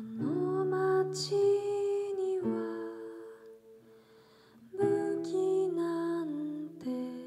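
Soft female singing in long held notes over a fingerpicked classical guitar, sliding up into the first note; the music drops almost away about halfway, then resumes with another held phrase.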